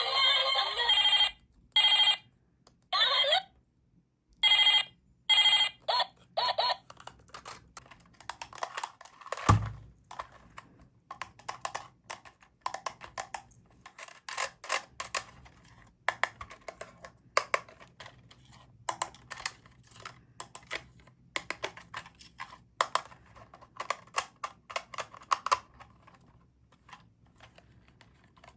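Short bursts of an electronic tune in the first few seconds, then many small clicks and taps of hard plastic toy pieces being handled, with one heavier thump about nine seconds in.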